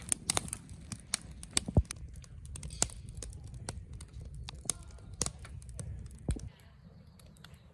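Campfire crackling, with irregular sharp pops and snaps over a low rumble that fades about six and a half seconds in.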